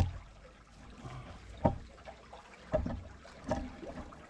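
Wooden stick jabbing and scraping in dry grass and dirt, with four sharp knocks. The loudest knock comes right at the start, and the others fall about one and a half, two and a half and three and a half seconds later.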